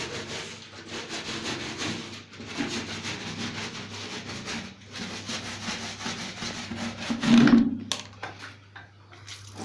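Rapid back-and-forth scrubbing of a wet vacuum cleaner part, in three runs of strokes with short breaks between them. A louder bump comes just before the scrubbing stops, about eight seconds in.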